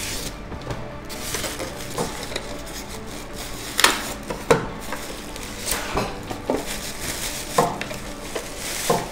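Unpacking noises: a sandwich toaster lifted out of its cardboard box in polystyrene foam end caps and pulled out of a plastic bag, with the plastic crinkling and several sharp knocks and scrapes.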